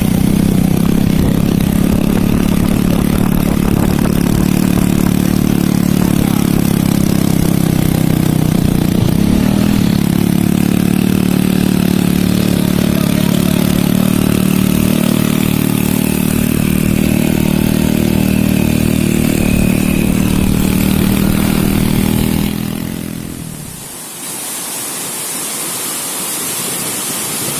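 Motorcycle engine running at a steady pace, dying away about 23 seconds in. It gives way to a steady high hiss of rushing water.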